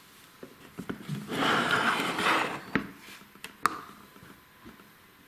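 Hard plastic Play-Doh playset being handled: a scraping rustle for about a second, then two sharp plastic clicks, typical of its clear lid being shut and the set shifted on the table.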